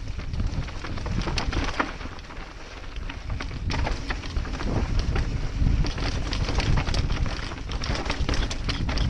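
Mountain bike running fast down a rocky dirt trail, heard from a helmet-mounted camera: wind rumbling on the microphone over tyres crunching on loose stones, with frequent clattering knocks and rattles as the bike hits rocks. The clatter eases briefly about two seconds in, then picks up again.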